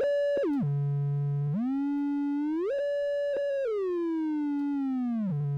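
Octave-Plateau Kitten II monophonic analogue synthesizer sounding one held note while its pitch bend knob sweeps it about an octave either way: a quick drop, a rise back up, then a slow slide down and a rise again near the end.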